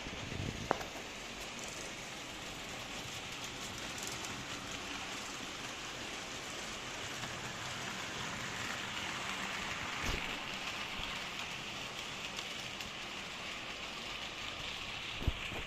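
H0-scale AC model trains running on the layout: a steady rolling hiss from wheels and motors, with a few sharp clicks from wheels over rail joints or points.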